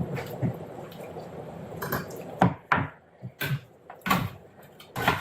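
Irregular clatter of a kitchen knife, cutting board and bowl: about eight separate knocks and clinks, spaced unevenly, with no steady chopping rhythm.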